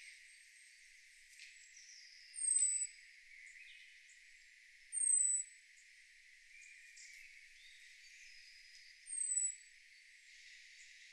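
Birdsong: one bird repeats a short, very high, thin note that falls in pitch, three times a few seconds apart, over faint chirping of other birds.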